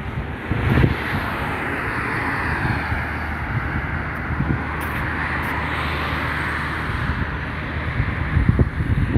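Road traffic: a steady noise of passing cars that swells and eases over several seconds, with wind rumbling on the microphone.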